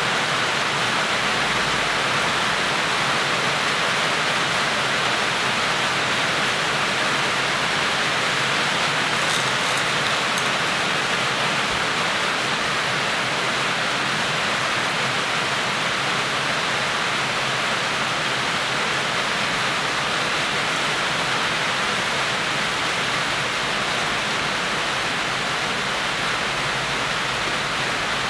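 Steady, even hiss with no change in level.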